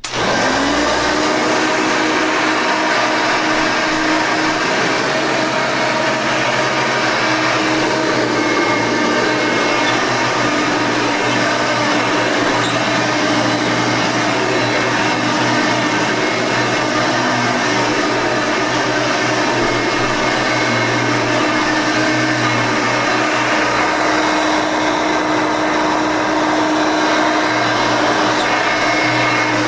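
Hoover Elite 5.2 amp vacuum cleaner switched on, its motor whine rising over the first second as it spins up, then running steadily at full speed.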